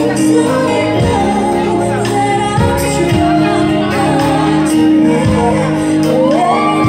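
Live band playing a pop ballad, electric guitar, keyboard, bass and drums, with a drum hit about once a second and a female singer's voice sliding up near the end.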